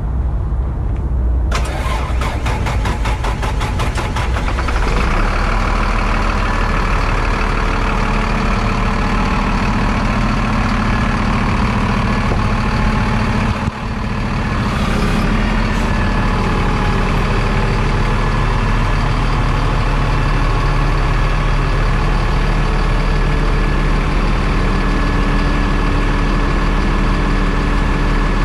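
Mercedes MBE900 diesel engine of a Freightliner M2 roll-off truck starting about a second and a half in, with a rapid pulsing for a few seconds as it catches, then running steadily. In the second half it keeps running while the hydraulic roll-off hoist is worked.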